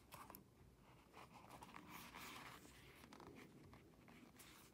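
Faint scratchy rustling of a needle and waxed thread being drawn through the stitching holes of leather in hand-sewing, with a longer swish about two seconds in.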